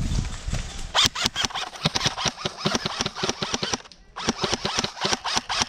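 Airsoft guns firing: a rapid, irregular string of sharp cracks, several a second, with a short lull about four seconds in.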